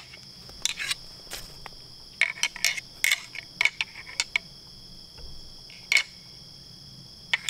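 A pair of deer antlers knocked and clacked together in short irregular clusters of sharp clicks, with a steady high drone of crickets behind.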